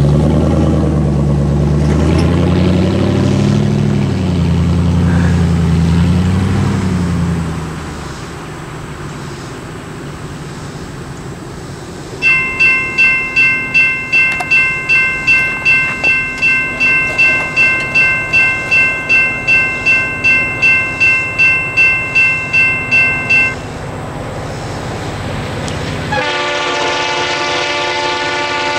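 A pickup truck's engine rises and falls in pitch as it drives over the crossing for the first several seconds. From about twelve seconds in, the crossing's General Signals Type 2 electronic bell dings steadily about twice a second, then stops once the gates are down. Near the end, the horn of an approaching Norfolk Southern freight locomotive sounds a steady chord.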